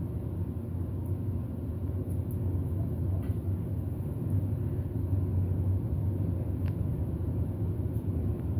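Elevator car travelling down, a steady low rumble of the ride in the cab, swelling slightly midway, with a faint tick or two.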